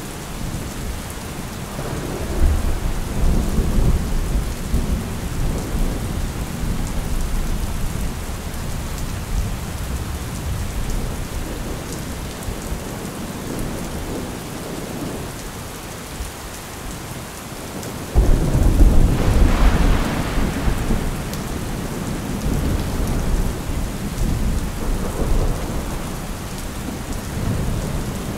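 Thunderstorm: steady rain with low thunder rumbling through the first few seconds, then a sudden loud thunderclap about two-thirds of the way through that rolls on as a long rumble.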